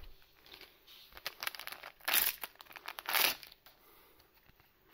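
Foil trading-card pack wrappers crinkling and cards being handled, a run of small crackles with two louder rustles about two and three seconds in.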